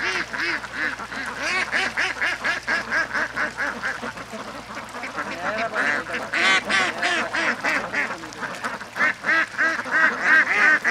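A dense chorus of many overlapping animal calls, short and nasal, several a second. It grows louder about six seconds in and again near the end.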